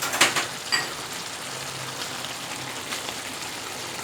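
Beetroot chicken curry sizzling steadily in a pan, with a few sharp crackles and clicks in the first second.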